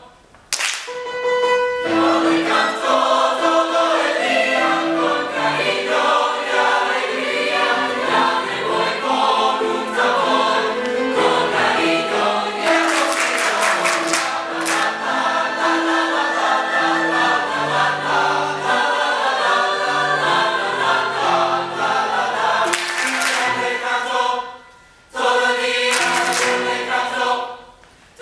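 A mixed choir of men's and women's voices singing in parts. The singing breaks off briefly just after the start, again about 24 seconds in, and once more just before the end.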